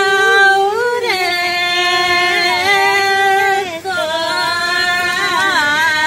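Singing: a high voice holding long notes with quick ornamented turns, over a steady lower held note.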